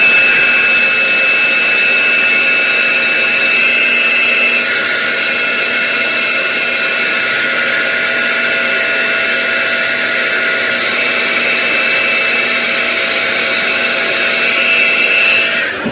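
A small electric motor runs steadily with a high whine. It cuts off sharply near the end.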